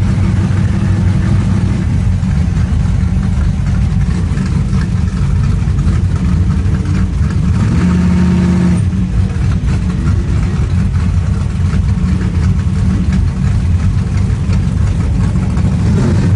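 Drag race car's engine running at idle, heard from inside the car: a steady, loud, low engine note whose tone shifts briefly about halfway through.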